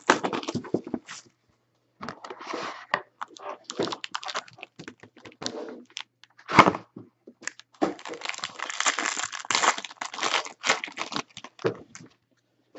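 Foil wrapper of a Panini Gold Standard trading-card pack crinkling and tearing as it is opened by hand, with clicks and scrapes from the cardboard pack box being handled. There is a sharp knock about six and a half seconds in, and a stretch of dense crinkling a little later.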